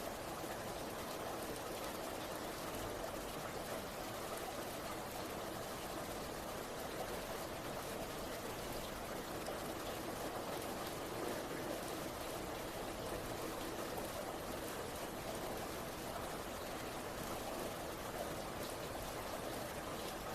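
Heavy rain falling steadily, an even hiss with faint scattered drop ticks.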